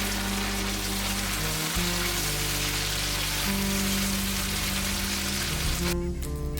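Steady sizzle of food frying in a hot pan under background music with long held notes. The sizzle cuts off abruptly near the end while the music continues.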